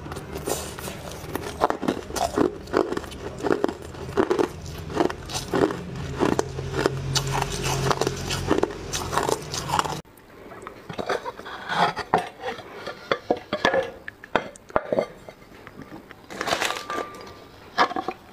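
Frost-coated ice being bitten and chewed, a dense run of crisp crunching crackles. About halfway through the crunching suddenly drops away to sparser, quieter cracks.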